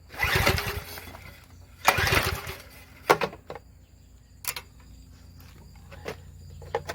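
Two pulls on the recoil starter of a Craftsman gas pressure washer's small engine, each a short whirring crank that does not catch, followed by a few light clicks.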